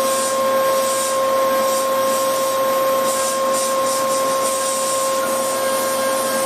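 CNC mill's spindle and end mill cutting a metal block: a steady high whine over an even hiss of cutting.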